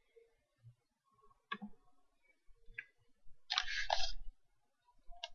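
Faint computer mouse clicks, a few sharp single clicks, with a short louder burst of noise about three and a half seconds in.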